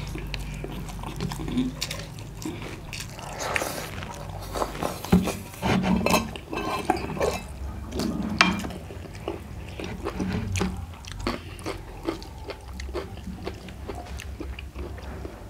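Close-miked eating sounds: people chewing rice and curry eaten by hand, with wet mouth clicks and smacks, and fingers scraping and tapping steel plates. Near the end, a drink is taken from a glass jar.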